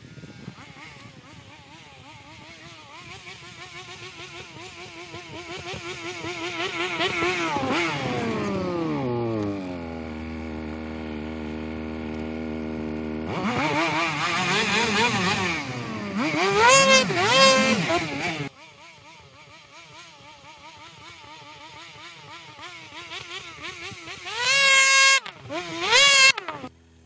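Two-stroke snowmobile engines, one a Ski-Doo close by, rising and falling in pitch as the sleds manoeuvre, with a steady idle in the middle. The nearby sled revs hard for several seconds and stops abruptly, then revs sharply twice near the end as it pulls away.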